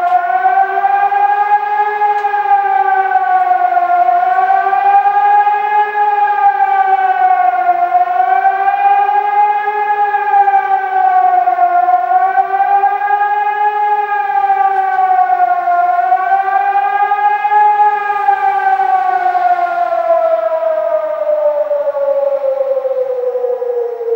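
Civil-defence warning siren sounding its rising-and-falling alarm tone during a siren test, the pitch swelling up and down about every four seconds. About three-quarters of the way in it stops rising and winds down in one long falling slide.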